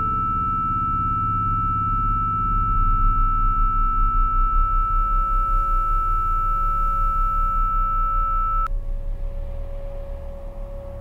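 Experimental industrial ambient music: a steady high pure tone held over a low pulsing drone, with a lower tone entering about halfway. The high tone cuts off suddenly near the end.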